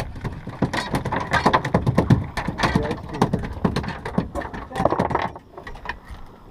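Fast, irregular mechanical clicking and rattling of a spinning reel and rod being handled, stopping about five seconds in.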